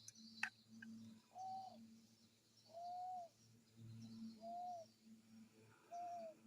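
A bird calling at night: four short, clear whistled notes at one pitch, each slightly arched, about a second and a half apart. A brief sharp falling sound comes just before the first note.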